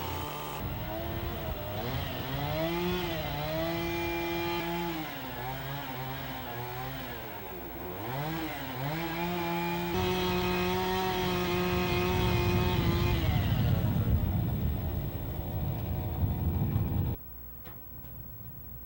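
Two-stroke chainsaw running under load, its engine pitch rising and falling with the throttle, then cutting off suddenly near the end.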